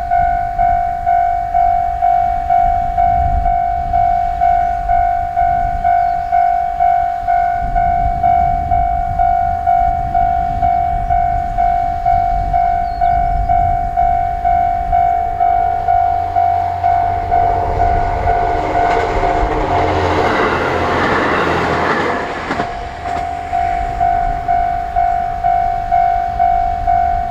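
Japanese level-crossing warning bell ringing in steady electronic dings, about one and a half a second. About sixteen seconds in, a JR Hokkaido H100 'DECMO' diesel-electric railcar approaches and runs over the crossing. Its engine and wheel noise peaks about twenty seconds in and briefly drowns the bell, and the bell cuts off at the end.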